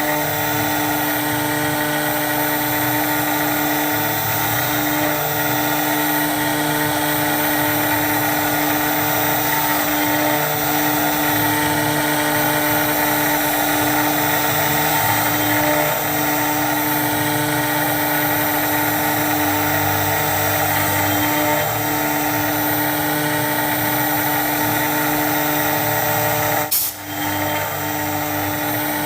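CNC router spindle running steadily and cutting UHMW plastic, a held whine over a hiss of cutting noise. There is a momentary break near the end.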